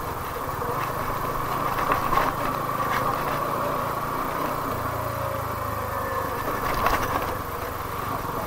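TVS Apache RTR 200's single-cylinder engine running steadily at low speed as the motorcycle rolls over a rocky dirt trail, with knocks and rattles of the bike jolting on the stones, a few sharper ones about two, three and seven seconds in.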